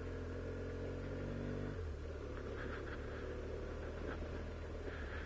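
BMW motorcycle engine running while riding along a dirt road. The engine note drops and softens about two seconds in, over steady road and wind noise.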